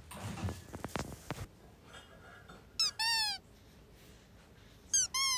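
High-pitched squeaks that dip in pitch: one about three seconds in, then two in quick succession near the end. Before them come soft handling clicks and rustling.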